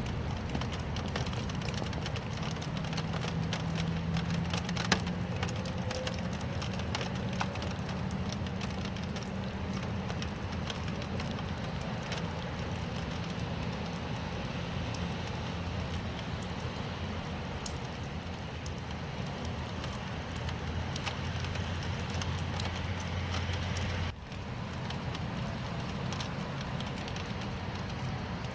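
Steady rain falling, a dense patter of close drops ticking on a surface over a low rumble, with one sharper drop about five seconds in. The level dips suddenly for a moment about 24 seconds in, then the rain carries on.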